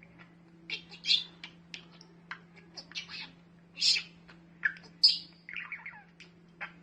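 A run of short, high chirps coming irregularly, some of them loud, over a steady low hum.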